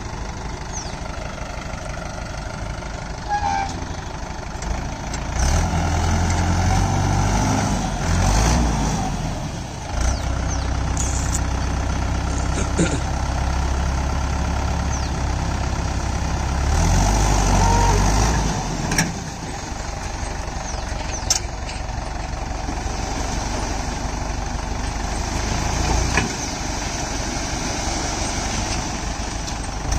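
Heavy diesel engine running, its revs rising into louder stretches several times, with a few short knocks.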